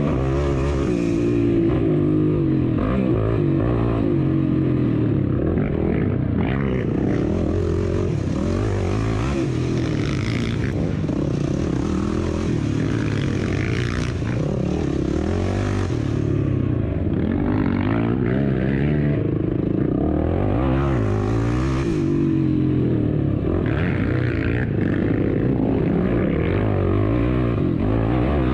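Off-road racing motorcycle engine, recorded on board, revving up and falling back again and again as the rider accelerates, shifts and brakes through the course. There are stretches of rushing hiss on top.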